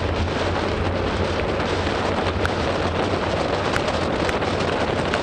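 Steady rush of wind over the microphone and tyre hiss on the wet road during a fast bicycle descent in pouring rain, with a few faint ticks near the end.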